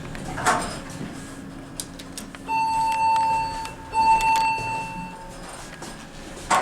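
Elevator's electronic signal sounding two long beeps of the same steady pitch, one after the other, with a brief knock about half a second in.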